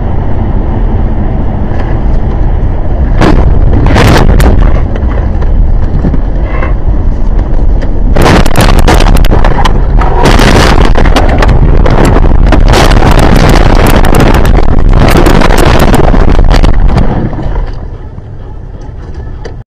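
A car crashing on a snowy road, recorded from inside by a dashcam: loud rumbling noise, then a long run of crashing impacts as the car leaves the road and tumbles. The impacts die down about two seconds before the end.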